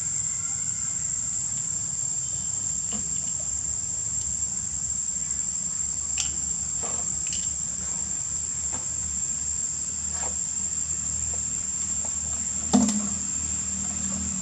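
Insects droning steadily at a high pitch. A few soft clicks are scattered through it, and there is one sharper knock near the end.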